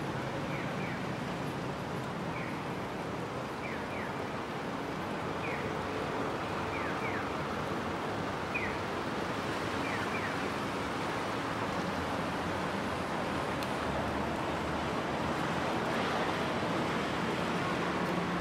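Steady street traffic noise with a Japanese pedestrian crossing signal's electronic bird chirps. A single chirp alternates with a double chirp about every second and a half, and the chirps stop about ten seconds in.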